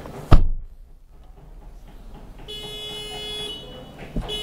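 A car door slams shut just after the start. About two and a half seconds in, an electronic buzzer alarm starts sounding a steady buzzing tone, which breaks off briefly near the end and starts again.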